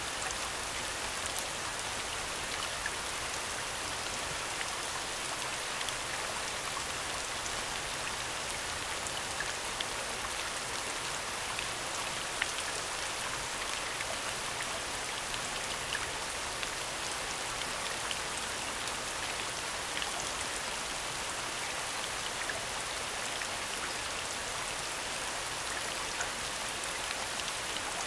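Steady recorded rain soundscape: an even hiss of falling rain with scattered single drops ticking through it.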